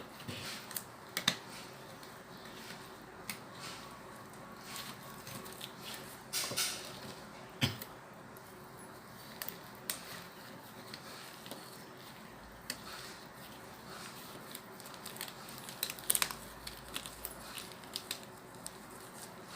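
Scattered light clicks, taps and rustles of small medical supplies being handled and set out, over a faint steady hum.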